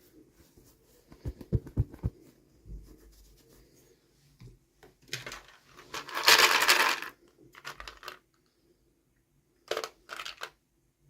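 Toy packaging being handled and opened: a few soft knocks, then a loud rustle of packaging lasting about two seconds, and two short rustles near the end.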